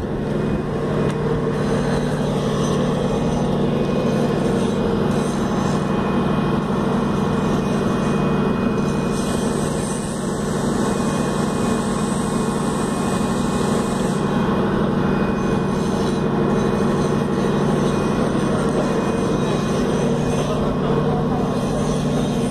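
Steady, loud machinery drone with a constant low hum, unbroken throughout.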